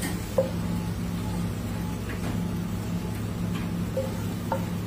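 Wooden spatula knocking and scraping against a metal frying pan while stuffing is spooned out: one sharp knock about half a second in, then a few lighter taps. Under it, a steady low machine hum.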